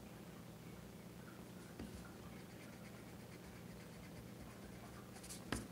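Graphite pencil drawing on paper: faint scratching strokes over a steady low hum, with a light tap about two seconds in and a sharper knock near the end.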